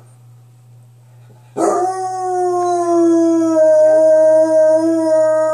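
A dog's single long howl, beginning about a second and a half in and held at a nearly steady pitch that sags slightly lower. A faint steady low hum lies underneath.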